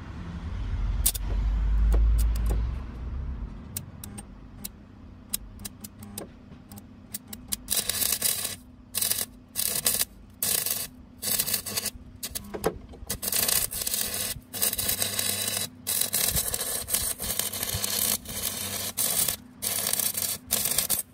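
Stick-welding arc from a thin Parkside electrode: a low rumble and a few scratching clicks as the rod is struck, then about eight seconds in a loud crackling, sizzling arc that keeps cutting out and re-striking many times, the thin rod being hard to keep going.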